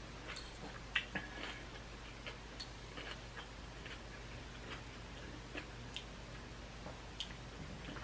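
A person chewing crunchy stir-fried vegetables and shrimp close to the microphone: irregular small crunches and clicks, a few a second.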